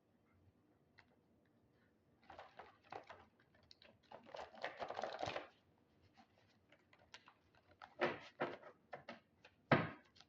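Tarot cards being handled: soft rustling and light clicks, with a longer rustling burst about four to five seconds in and a run of sharper clicks near the end.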